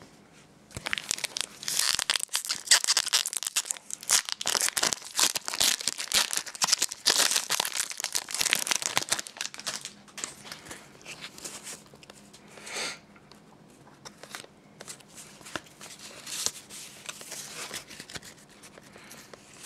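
Pokémon trading card booster pack's foil wrapper being torn open and crinkled: a dense run of crackling for the first nine seconds or so, then scattered crinkles and rustles.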